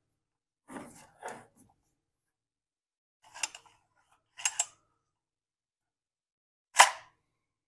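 Handling noise: a few soft rubs and clicks, two short clicks in the middle, and one sharper, louder click near the end.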